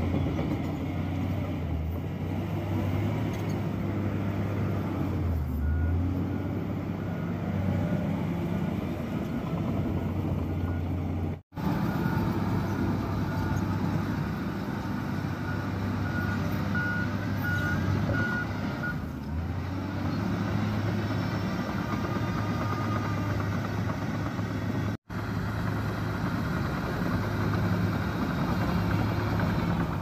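Shantui DH17 crawler bulldozer's diesel engine running steadily as the dozer pushes soil with its blade, a low drone whose note shifts now and then. Faint short high beeps come through at times, and the sound cuts out for an instant twice.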